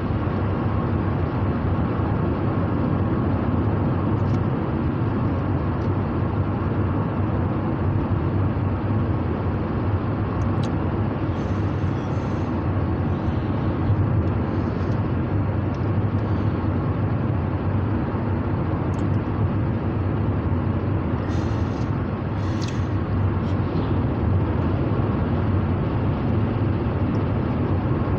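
Steady road and engine noise inside a car's cabin while it is being driven: a constant, even rumble with no breaks.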